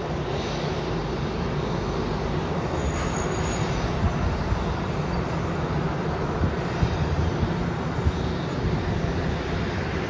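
Jet airliner's engines rumbling and rushing steadily as it rolls out on the runway after touchdown.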